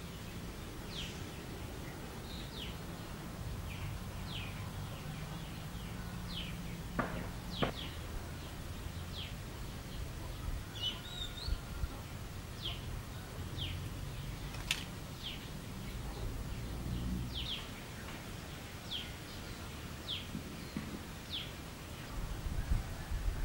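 A bird calling with short, high chirps that fall in pitch, repeated roughly once a second, over a low steady rumble.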